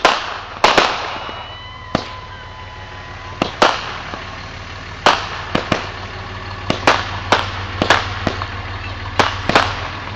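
Consumer aerial fireworks going off: more than a dozen sharp bangs and pops at irregular intervals, some in quick pairs. A thin high whistle sounds about a second in, over a low steady hum.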